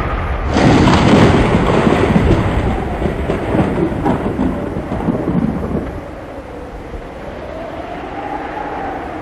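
Storm noise with rain, most likely thunder: a loud rumble starts abruptly about half a second in and dies down after about six seconds. A quieter wash of rain and wind follows, with a faint tone rising and falling.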